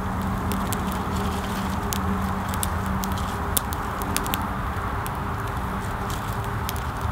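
Small campfire of birch bark and twig kindling crackling, with many sharp snaps and pops and one louder snap about three and a half seconds in, over a steady low drone of distant highway traffic.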